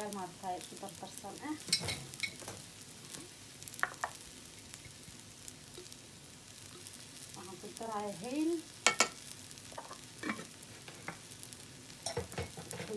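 Long-grain rice frying in oil in a pot: a faint, steady sizzle, with a few sharp knocks scattered through.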